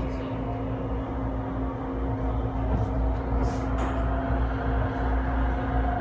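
Electric train rolling out of a station, heard from inside the carriage: a steady low rumble and hum, with a click at the start and a short hiss about three and a half seconds in.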